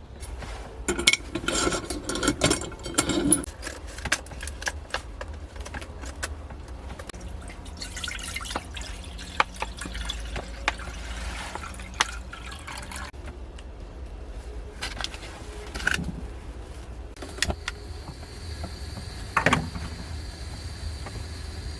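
Steady low wind rumble with scattered clicks and clatter of small objects being handled, busiest in the first few seconds and again around the middle.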